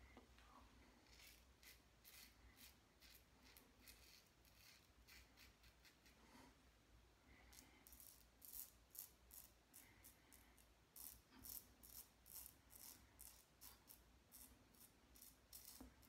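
Faint, short scraping strokes of a stainless steel double-edge safety razor with a Gillette Super Platinum blade cutting lathered whiskers on the upper lip and under the nose. The strokes come sparsely at first and quicker and clearer from about halfway.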